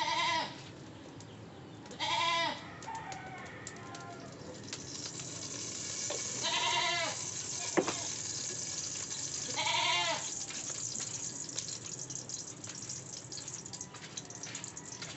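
A goat bleating four times in the first ten seconds, each call a short wavering cry of about half a second. Under it, a steady hiss with scattered crackles builds from about five seconds in.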